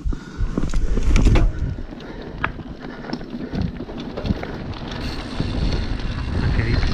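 Mountain bike rolling downhill over a loose, stony dirt trail: a low rumble of wind on the camera microphone and tyres on gravel, with scattered clicks and rattles from stones and the bike. The rumble grows louder toward the end as speed builds.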